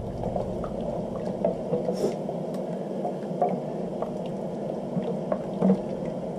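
Wooden spoon stirring a bubbling, flour-thickened chicken-stock sauce in a stainless steel sauté pan: a steady wet simmer with scattered light ticks of the spoon against the pan.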